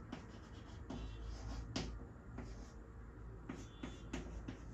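Chalk writing on a chalkboard: faint, scattered taps and short scratches as letters are written.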